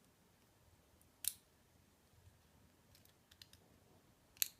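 Sparse, light clicks of small metal lock parts being handled while a Schlage pin-tumbler cylinder is taken apart: one click about a second in, a few faint ticks around three seconds, and a sharper click near the end.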